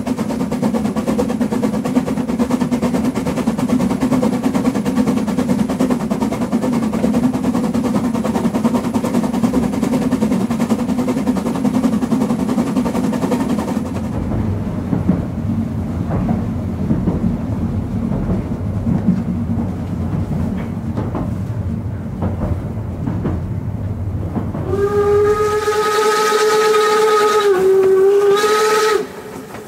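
HSB metre-gauge steam train running, with a steady rumble and wheel noise. About halfway through this turns duller and lower, with clicks from the rail joints. Near the end, the class 99.72 tank locomotive 99 7245-6 sounds its steam whistle in one long blast of about four seconds, dipping slightly in pitch before it stops, as it passes a whistle board.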